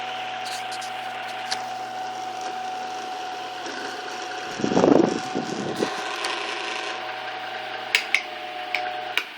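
A 1960s Walita all-iron electric fan running: a steady motor hum with a held whine, the fan making a little noise of its own. About five seconds in comes a brief loud noise, and near the end a few sharp clicks before the motor hum cuts off.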